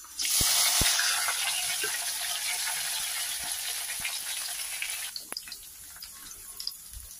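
Chopped onions, garlic and curry leaves hit hot oil and sizzle loudly at once, the sizzle easing after about five seconds. A wooden spatula stirs them in the pan, with a few light clicks.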